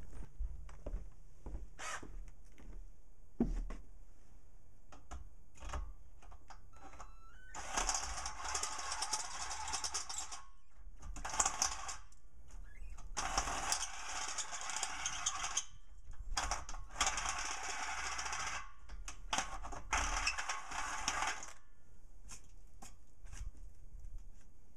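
Power drill with a step drill bit cutting through the stainless-steel wall of a beer keg in five bursts, each one to two and a half seconds long with short pauses between. Before the drilling there are light clicks and knocks.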